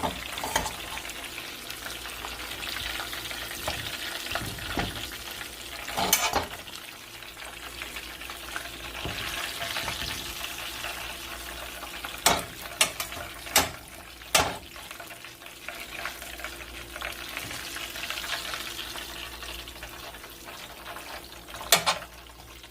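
Chicken pieces frying in hot oil, a steady sizzle, broken by a few sharp clinks of a utensil, most of them in a cluster around the middle and one more near the end.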